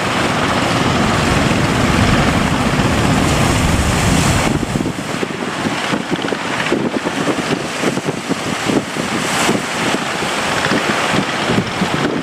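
Boat at sea in rough water: a steady rush of wind and water, with wind buffeting the microphone in rapid gusts from about four seconds in.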